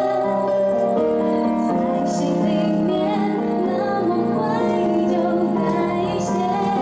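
A woman singing a pop song live through a microphone, with keyboard and backing-track accompaniment played over a PA system.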